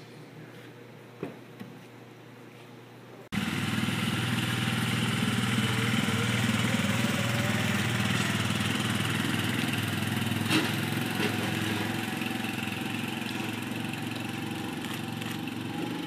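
Quiet room tone with a couple of light clicks, then about three seconds in a four-wheeler ATV engine cuts in, running steadily as it tows a wheeled aircraft cart. It grows a little quieter over the last few seconds as the ATV pulls away.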